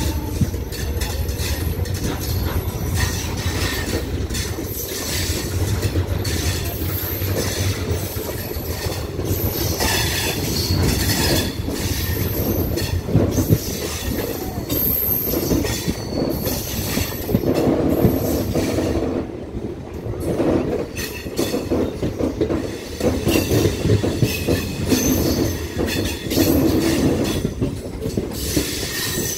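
ICF passenger coaches running on the track, heard from an open coach door: a steady rumble and rattle of wheels on rail, with a thin high squeal from the wheels coming and going.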